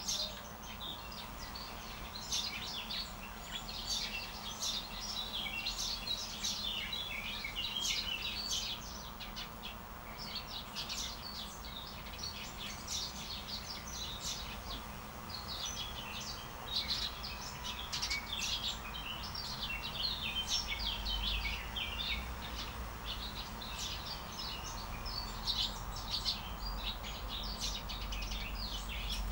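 Small songbirds chirping and calling in many short, overlapping high notes, over a faint steady low hum.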